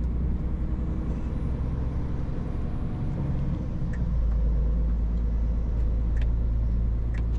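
Scania S450 truck's diesel engine running as the truck drives, with a steady low rumble of engine and road heard in the cab. The rumble grows a little louder about four seconds in.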